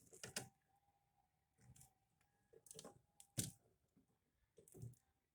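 Near silence with a few faint clicks and taps of hands handling a freshly wired GFCI outlet.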